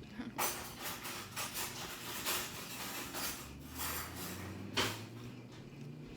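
Crab shells being cracked and pulled apart by hand while eating: a run of crackling clicks with a few sharper snaps, the loudest nearly five seconds in.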